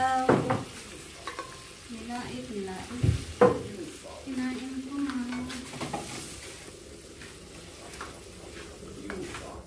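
Mung bean stew sizzling as it cooks in a frying pan, stirred with a wooden spoon that knocks against the pan a few times, loudest about three and a half seconds in.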